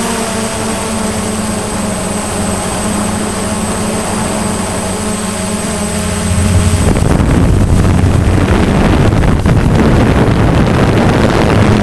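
DJI Phantom quadcopter's motors and propellers whining steadily, picked up by the camera riding on the drone. About seven seconds in, the steady whine gives way to a louder, rougher rush of wind buffeting the microphone over the rotor hum.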